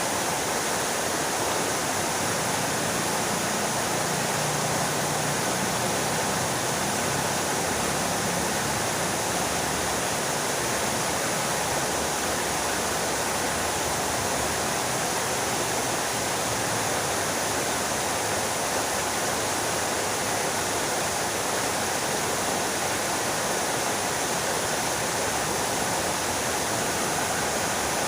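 Fountain water splashing down in a steady, unbroken rush.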